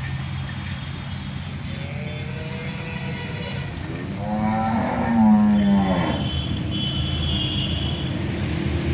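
A bovine moos once, a drawn-out call of about two seconds a little past four seconds in, rising slightly and then falling, over a steady low hum.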